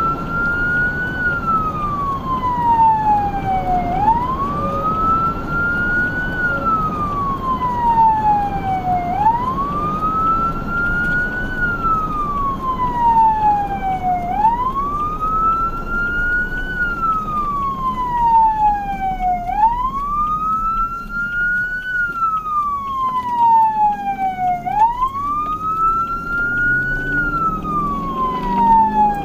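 Emergency vehicle siren on a slow wail, each cycle rising quickly to a high pitch and falling away more slowly, repeating about every five seconds, over steady engine and road noise.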